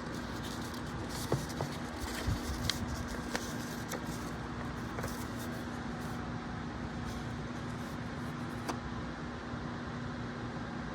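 Steady room hum and hiss with a low steady tone, broken by a few small handling clicks and rustles, several in the first half and one near the end.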